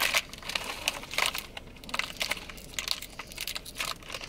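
Small plastic food packets crinkling with irregular short crackles as they are handled and worked open by hand.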